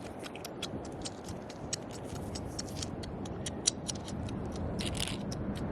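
Digging and scraping in beach sand: many irregular small clicks and ticks of shells and pebbles, over a steady low rushing noise.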